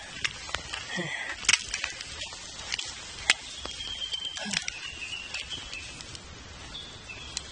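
Camera handling noise: a rain jacket's fabric rubbing against the microphone with scattered clicks and knocks, over a steady low wind rumble.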